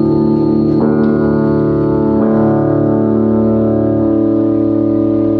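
Live band opening a slow song with sustained organ-like keyboard chords, the chord changing three times.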